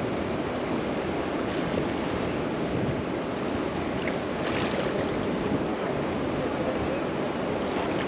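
Steady rushing of a flowing river's current, with some wind on the microphone.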